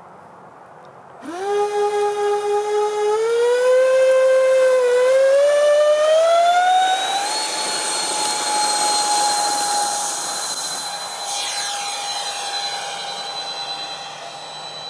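Electric ducted fans of a model Su-35 jet spooling up abruptly about a second in, their whine rising in pitch in steps as the throttle is advanced for the takeoff run, then holding a steady high pitch and slowly fading as the jet flies away.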